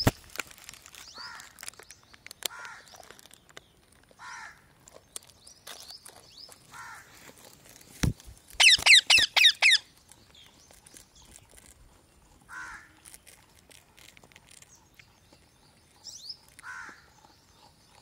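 Green parakeet calling: short calls every second or two, and a little past the middle a loud run of about six rapid, shrill screeches, just after a single thump.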